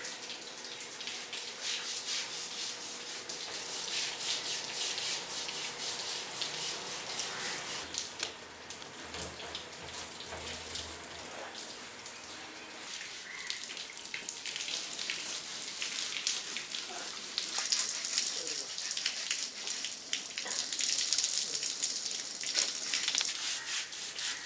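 Water from a hose spraying and splashing onto an Asian elephant's hide during its bath: a steady crackling hiss that grows louder about two-thirds of the way through.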